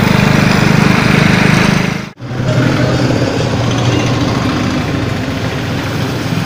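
Hero Honda single-cylinder motorcycle engines running while riding, with wind on the microphone. After a sudden cut about two seconds in, a motorcycle engine runs more steadily and a little quieter.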